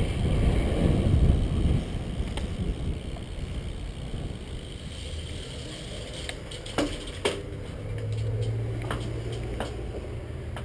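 Low vehicle rumble that drops away about two seconds in. A quieter stretch follows, with a few sharp clicks around seven seconds and a low steady hum from about eight seconds.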